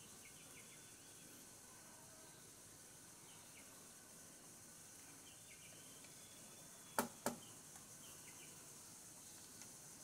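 Faint forest ambience: a steady high insect drone with scattered short bird chirps. About seven seconds in come two sharp knocks, a third of a second apart.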